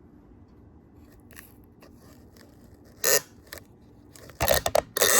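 Tripod and phone-holder parts being handled. There are a few light clicks, then a loud scrape about three seconds in, followed by a burst of scraping and clattering near the end.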